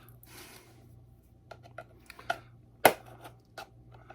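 Screwdrivers prying at the snap clips of a plastic solar-connector housing: scattered plastic clicks and scrapes, with one sharp click a little before three seconds in.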